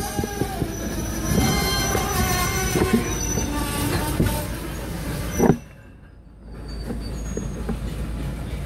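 Freight train of tank cars rolling slowly past, its steel wheels squealing in several high steady tones over a low rumble, with scattered clanks and clicks. The sound drops away sharply for about a second a little past halfway, then returns.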